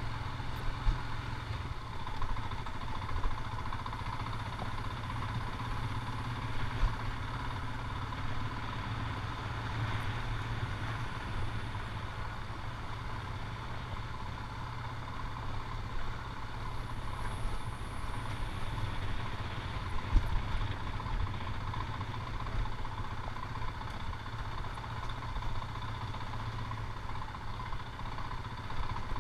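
Motorcycle engine running steadily at low speed over a rough, broken road surface, with a few sharp knocks as the bike hits bumps.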